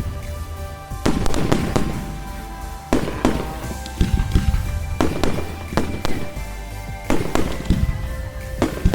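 Aerial firework shells bursting in a display: a bang about every second, each with a low rumble and crackle trailing after it.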